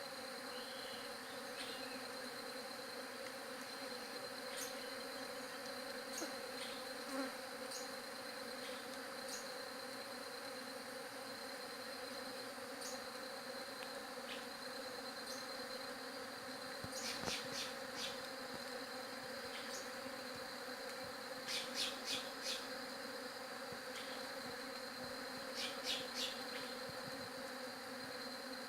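Swarm of bees buzzing in a steady, dense drone, with a thin high whine over it and a few short sharp ticks in quick groups near the middle and end.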